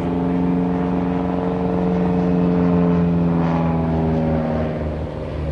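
1941 Piper J-3 Cub's engine and propeller droning overhead as the plane loops. The drone swells toward the middle and then sags slowly in pitch over the last couple of seconds.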